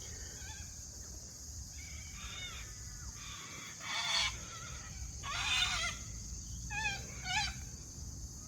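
Birds calling outdoors: four or five short calls with bending pitch, the loudest about five and a half seconds in, over a steady high-pitched insect drone.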